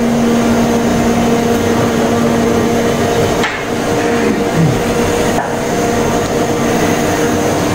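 Steady hum and whir of running workshop machinery, with a constant low tone that drops away about two and a half seconds in.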